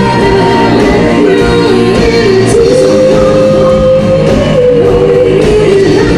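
Live band music with a woman singing lead; she holds one long note through the middle.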